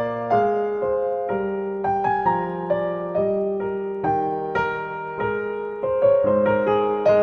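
Background piano music: a slow, gentle melody of single struck notes, each fading, over held lower notes.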